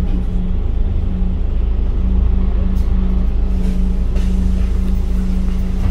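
Scania K310UD double-decker bus's five-cylinder diesel engine running steadily as the bus drives: a deep rumble with an even hum over it.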